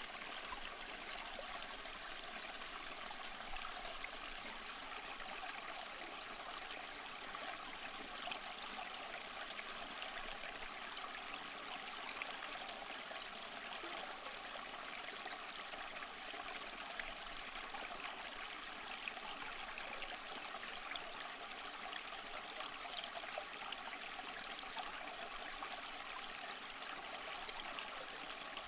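A small stream running steadily, an even rushing trickle of water with small splashes.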